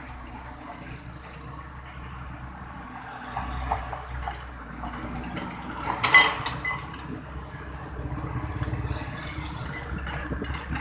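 Steady low vehicle-engine rumble with scattered clicks and knocks, and one sharp metallic clink about six seconds in.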